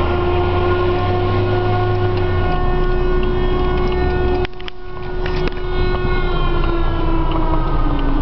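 Civil defense air-raid siren sounding a long steady tone, heard from inside a car; near the end its pitch starts to slide down. Low car rumble underlies the first couple of seconds.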